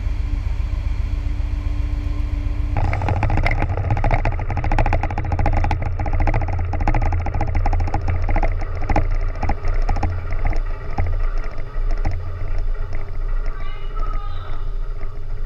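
Wind buffeting a microphone over a steady low rumble, turning suddenly louder and crackling about three seconds in. A voice is heard briefly near the end.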